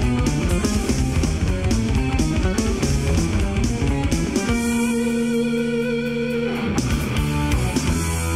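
Background rock music led by electric guitar, with a held chord a little past halfway through.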